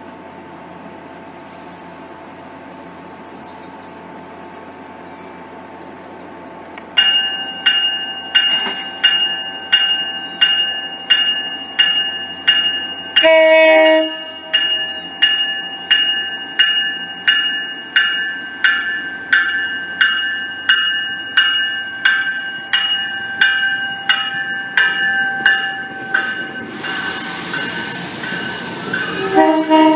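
A CapeFlyer commuter train coming into the station. About seven seconds in a bell starts ringing steadily, roughly once a second. The train horn gives a short blast about halfway through. Near the end a loud hiss comes as the cars pull alongside, and the horn starts sounding again right at the end.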